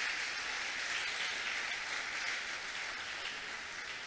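Church congregation applauding: steady clapping that slowly fades.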